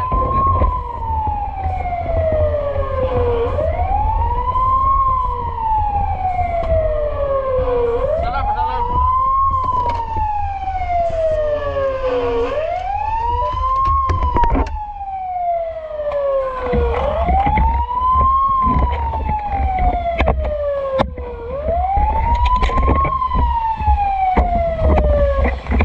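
Fire truck siren wailing: each cycle rises quickly in pitch, then falls slowly back down, about every four and a half seconds, over a steady low rumble.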